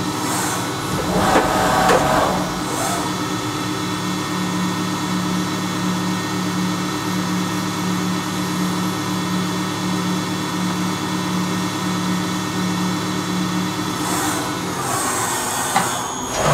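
Fadal 4020 vertical machining center running a program: a steady machine hum with several held tones and a low tone that pulses evenly, a brief louder surge about a second and a half in, and more mechanical noise near the end.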